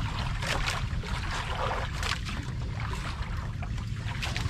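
Sea water lapping and splashing against the side of a small outrigger boat in irregular slaps, over a steady low rumble.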